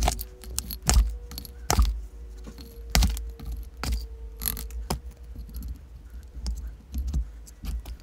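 Chunky potting mix of bark and perlite being scooped from a plastic tub with a plastic scoop and poured into a pot: irregular scrapes, rattles and clacks, the loudest about once a second in the first few seconds.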